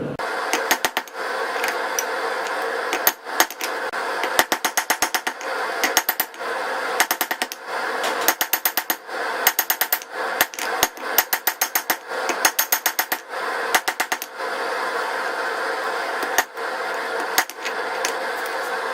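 Hammer blows on hot 5160 spring steel against an anvil, forging down a slot punch. The blows come in quick runs of several strikes with short pauses between, each strike ringing bright, over a steady background noise.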